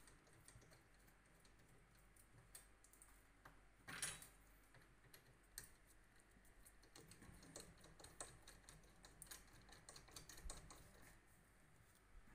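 Faint clicks and small knocks from a hand-lever shotshell crimping press being worked as a slug cartridge is crimped closed. There is one louder brief rustle about four seconds in, and the clicks come thicker later on.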